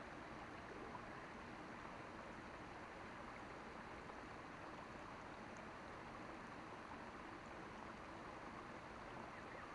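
Faint, steady outdoor background noise: an even hiss with no distinct events.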